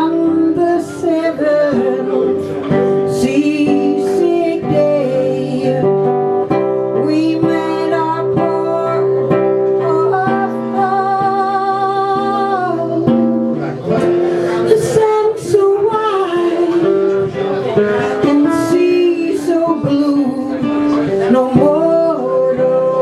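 Live music: acoustic guitar with singing, with a long wavering held note about halfway through.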